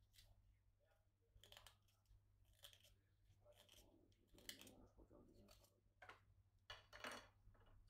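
Faint, irregular scraping and cutting strokes of a hand tool working a bamboo piece for a hulusi, several short strokes at uneven intervals, over a low steady hum.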